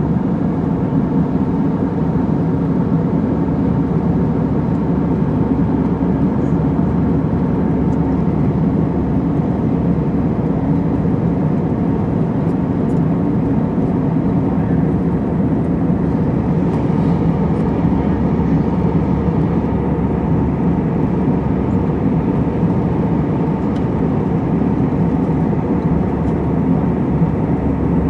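Steady, low, even drone of aircraft cabin noise at cruising altitude: engine and airflow noise heard from inside the cabin.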